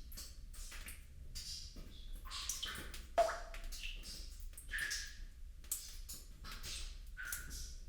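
Water drops plopping irregularly, several a second, each a short bloop with a quick pitch glide; the loudest plop comes about three seconds in.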